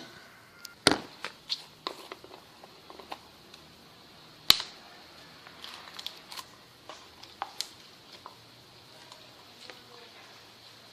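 Slime being handled and squished, giving irregular sharp pops and clicks. Three louder ones come at the start, about a second in and about four and a half seconds in, with many smaller clicks between.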